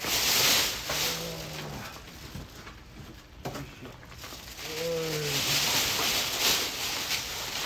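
Crinkling of a large plastic bag being handled, in two bouts, with two short low hums in between.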